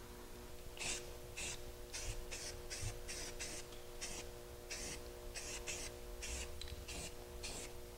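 Aerosol spray can of primer sprayed in many short, faint hisses, two to three a second, laying light coats of primer onto a bare aluminum wheel.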